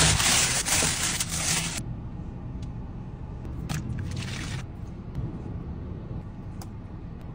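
A plastic carrier bag and foil wrapping crinkling loudly as a takeaway meal is unwrapped, for nearly two seconds. After that it goes much quieter: one brief rustle of plastic about four seconds in and a few light clicks, over a steady low hum.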